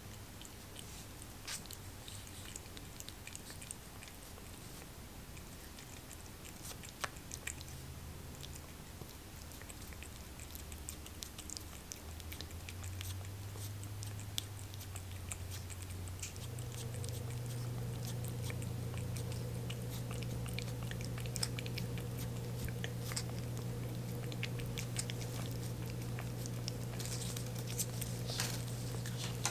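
A cat licking a lickable puree treat from a squeeze tube: soft, scattered wet licking and smacking clicks. A steady low hum comes in about halfway through and holds.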